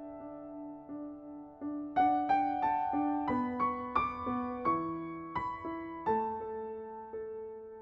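Background piano music, notes struck at an even, unhurried pace. The melody gets louder and climbs about two seconds in, then settles onto a lower chord about six seconds in.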